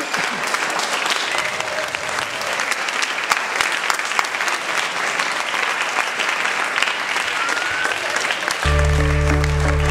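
Audience applauding, many hands clapping steadily. Near the end, music with sustained low notes starts suddenly over the applause.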